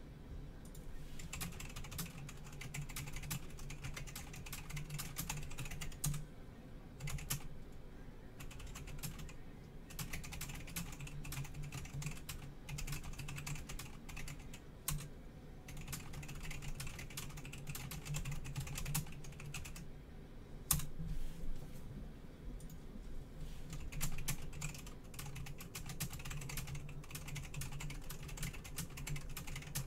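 Typing on a computer keyboard in irregular runs of clicks with short pauses, over a steady low hum.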